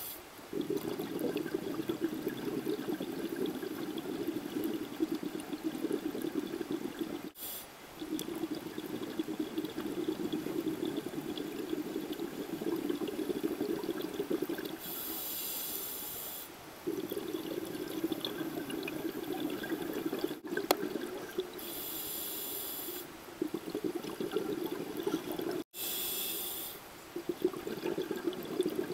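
Scuba diver breathing through a regulator underwater: long stretches of bubbling from the exhaled air, broken three times by a short high hiss of inhalation.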